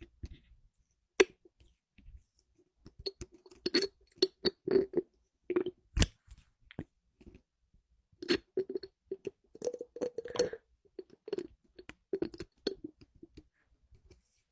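Objects being tapped and handled close to the microphone: irregular short clicks and taps, some with a brief ringing tone, coming in clusters through most of the stretch.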